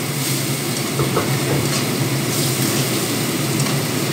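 Food frying in oil in a pan under a steady, loud humming drone, with a few clicks of a spatula against the pan.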